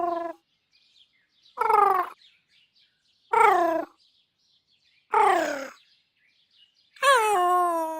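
Synthesized cute-robot vocalizations in a 'sadness' set: short cries that fall in pitch, repeating about every second and a half. The last cry, near the end, is longer, wobbling before it levels off.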